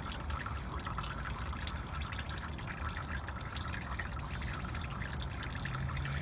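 Used engine oil dripping and trickling from a loosened oil filter into a drain pan, many small irregular drips.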